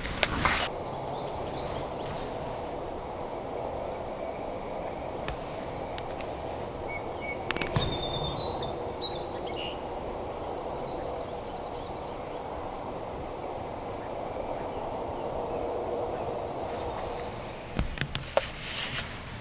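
Steady outdoor background noise with a few short songbird chirps about halfway through, and a few light knocks or rustles near the start, midway and near the end.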